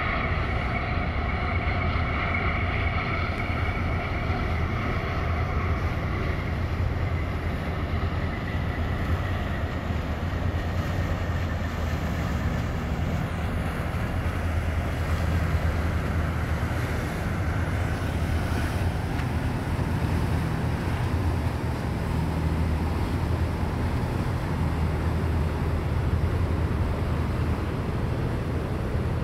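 Wind on the microphone over a steady low rumble of boat engines and harbour water. A high engine whine from a small fast boat fades out over the first few seconds, and a pilot boat's engine and wake add a hiss in the middle.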